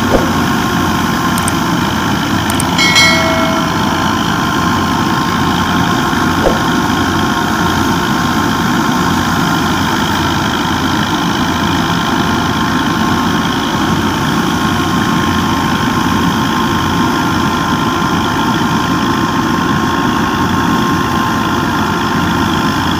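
Tractor-driven wheat thresher running steadily while threshing wheat sheaves. The threshing drum makes a dense, even mechanical din, with the Fiat 480 tractor's diesel engine running under load beneath it.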